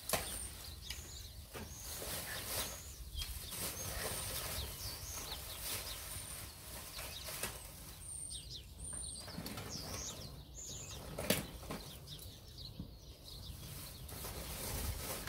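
Black plastic bin bag rustling as rubbish is pushed into it and the bag is shaken, with a few small knocks now and then.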